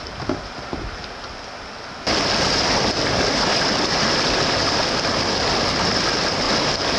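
River water rushing: a quieter flowing stretch for the first two seconds, then much louder, steady roaring whitewater of a rapid from about two seconds in.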